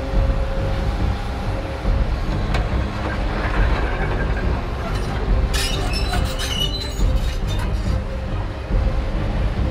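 A Case crawler excavator runs steadily, with a low diesel rumble, as it slews and lifts its arm. Sharp metallic squealing and clinking come from about five and a half to seven seconds in.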